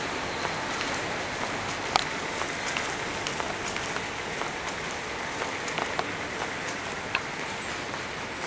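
Steady hiss of background noise in an underground metro station concourse, broken by scattered short sharp ticks at irregular intervals.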